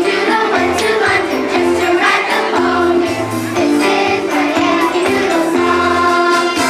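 Live music from a school choir's stage performance: a song with instrumental accompaniment and singing voices.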